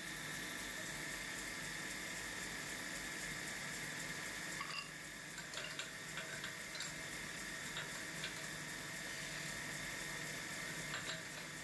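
Metal-spinning lathe turning a silver workpiece while a hand-held spinning tool is pressed against the metal: a steady hiss with a constant high whine. A few short sharp ticks and squeaks of tool on metal come through, mostly in the middle and near the end.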